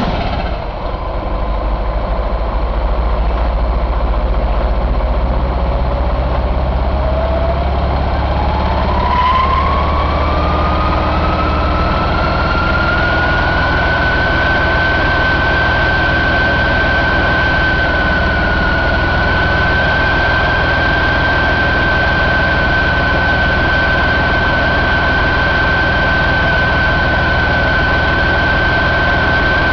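2019 Detroit DD13 inline-six diesel engine, just started, settling into a steady idle. A high whine rises in pitch over several seconds and then holds steady on top of the idle.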